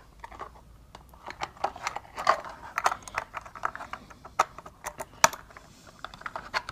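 Irregular plastic clicks and taps as an emergency-stop button and its holder are handled and fitted onto a 3D-printed plastic control case.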